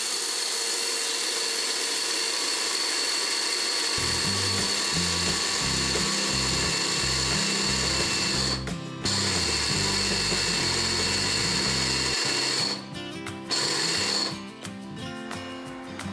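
Small electric grinder's motor running with a steady high whine as it grinds raw rice into powder. It stops briefly about nine seconds in, runs again, and stops about twelve seconds in. Background music plays under it.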